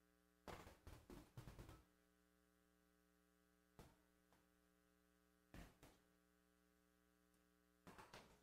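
Near silence: a faint, steady electrical mains hum with a ladder of overtones, broken by a few faint, brief noises.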